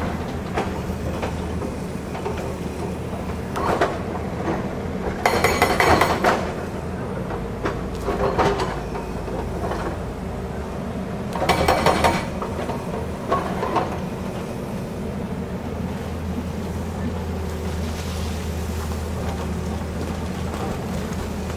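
Tata Hitachi hydraulic excavator running steadily with a low diesel hum, its bucket clattering and scraping against broken quarry rock. The rock clatter is loudest about five to six seconds in and again around twelve seconds in, with a few lighter knocks between.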